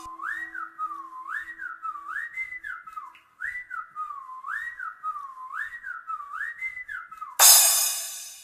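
Music without a beat: a whistle-like lead repeats a short swooping figure, up and back down, about once every 0.6 seconds, with a brief pause about three seconds in. Near the end a loud rush of noise, like a crash cymbal or riser, takes over, then the sound cuts off.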